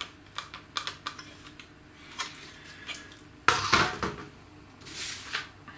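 A hard plastic model tank hull is handled, giving light clicks and taps, then set down on a wooden table with a loud clatter about three and a half seconds in. A shorter scraping rustle follows about a second later.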